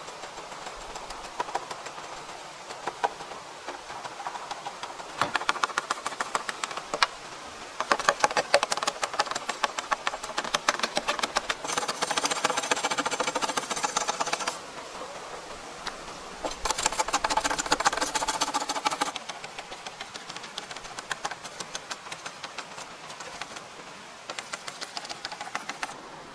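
A small machine clattering rapidly in several bursts of a few seconds each, the longest and steadiest near the middle, with a buzzing tone under the clatter.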